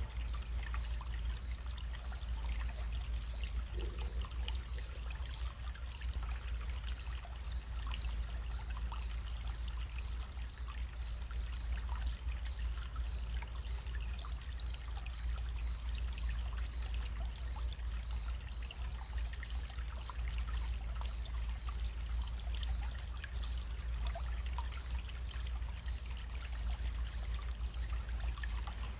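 Small running stream: a steady wash of flowing water with many small splashes, over a low steady rumble.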